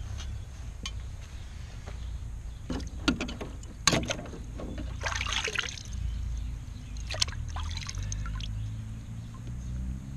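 Water sloshing and splashing in a plastic tub as an aluminum casting is lifted out and handled, with several sharp splashes and knocks between about three and eight seconds in, over a low steady rumble.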